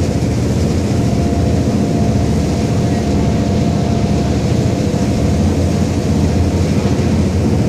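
Passenger boat's engines running steadily under way, over the rush of water churned up in the wake. A faint steady whine sits on top from about a second in until about six seconds in.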